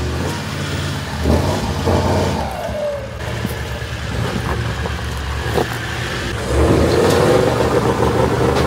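Four-wheel-drive engines revving under load as the vehicles climb a steep, rutted dirt track, growing louder about six and a half seconds in.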